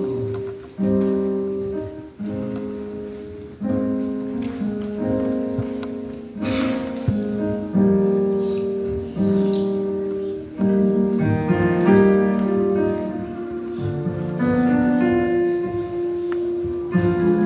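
Slow instrumental piano music: chords struck every second or two and left to ring, with more moving notes above them in the second half.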